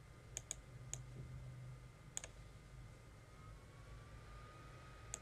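Computer mouse button clicking faintly a few times, single and paired clicks, as keys are picked on an on-screen keyboard, over a faint steady electrical whine.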